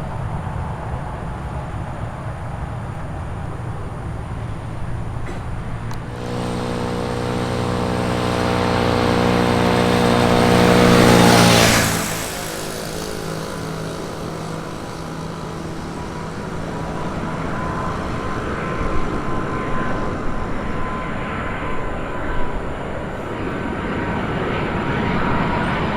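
An aircraft passes close by with a steady engine hum that builds for about six seconds. Its pitch drops slightly as it goes past, and it falls away sharply about twelve seconds in. A fainter high engine whine holds afterwards.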